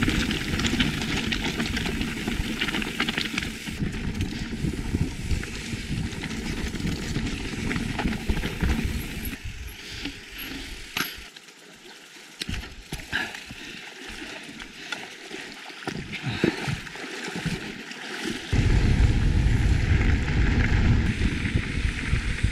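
Mountain bike ride noise from a GoPro on a backpack strap: tyres on a dirt trail and bike rattle at first. Around the middle it drops to a quieter stretch of flowing creek water while the bike is carried across the creek. About three-quarters through, a loud, low wind rumble on the microphone starts with riding on a gravel road.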